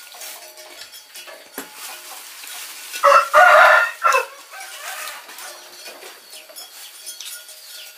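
A rooster crows once, loud, about three seconds in, for a little over a second, against faint background chirping.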